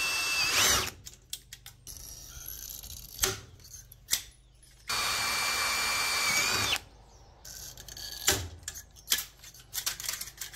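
AEG cordless drill running in two short bursts, driving screws to fasten a thin bracket onto a plastic pipe. The first burst is about a second long at the start and the second, about two seconds long, comes about five seconds in, with handling clicks and knocks in between.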